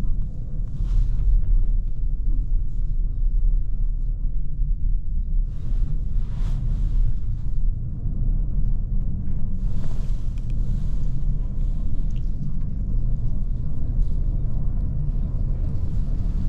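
Steady low rumble inside a cable car cabin on its descent, with a few faint higher rushing swells.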